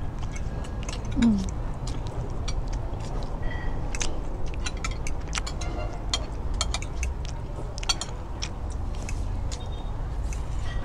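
Eating at a table: many short sharp clicks of a metal fork and spoon against plates and bowls, along with chewing, over a steady low rumble. About a second in, a short falling hum stands out as the loudest sound.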